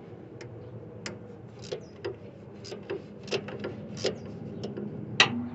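Ratchet wrench clicking in short, uneven strokes as it backs out the bolt that holds an A/C line to the compressor. About a dozen sharp clicks, the loudest near the end.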